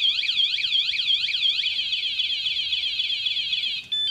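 Battery bike alarm siren sounding after being tampered with. It begins as a loud repeating whoop, about three sweeps a second, then switches to a faster warble partway through. It cuts off near the end with a few short beeps.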